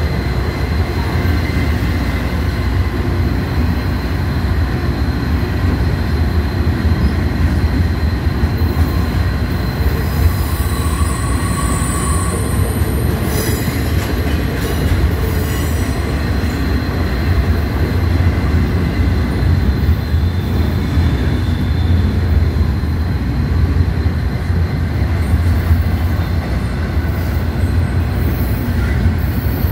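Double-stack intermodal container train rolling past on well cars: a steady rumble of wheels on rail, with a thin steady whine and brief high wheel squeals about ten to thirteen seconds in.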